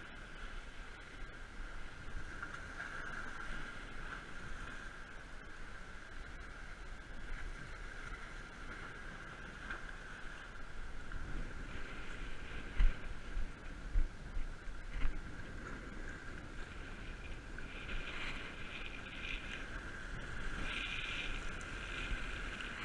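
Wind buffeting the camera microphone over the wash of waves on jetty rocks, with a few low thumps a little past the middle.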